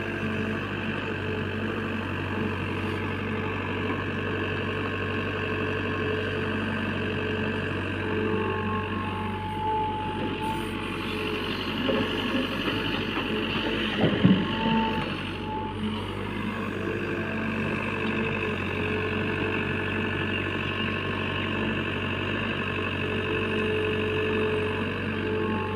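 JCB backhoe loader's diesel engine running steadily under working load, with a brief loud thump about halfway through.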